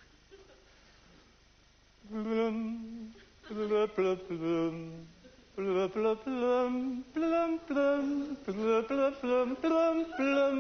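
A person humming a wordless tune in held notes that step up and down in pitch, starting about two seconds in.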